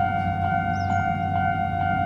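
Japanese railway level crossing alarm ringing without a break, a steady metallic ring at two pitches over a low hum.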